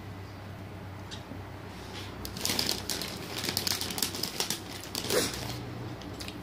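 Crunchy Flamin' Hot Cheetos being chewed close to the microphone: a quick run of crunches from about two seconds in until near the end, over a steady low hum.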